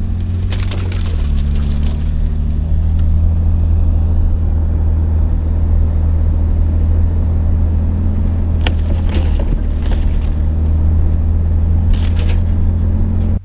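Vehicle engine and road noise heard from inside the cab while driving a rough dirt road, a steady low drone, with bursts of sharp cracks and clatter near the start, about nine seconds in and near the end.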